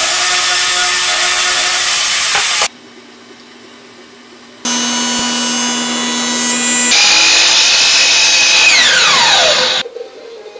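Woodworking power tools cutting cedar in quick succession: a table saw running through a cut, a short lull with a low hum, then another machine running. Near the end a motor is switched off and winds down with a falling whine.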